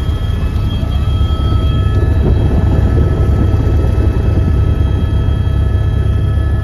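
Helicopter running at a steady pitch: a loud, even low rotor-and-engine rumble with a thin high turbine whine over it.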